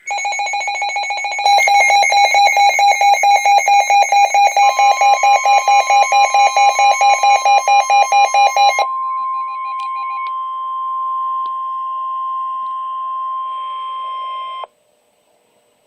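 A weather radio receiver's alert alarm beeping rapidly, about five beeps a second, joined about four and a half seconds in by the steady NOAA Weather Radio warning alarm tone. The tone carries on alone after the beeping stops at about nine seconds and cuts off sharply; it signals that a warning message is about to follow.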